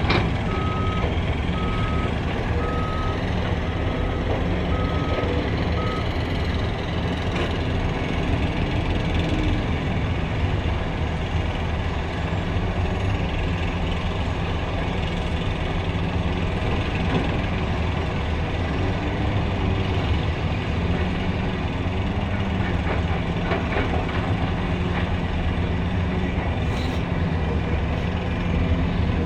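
Heavy earthmoving machinery: a large diesel engine running steadily, with a backup alarm beeping about once a second that stops about six seconds in.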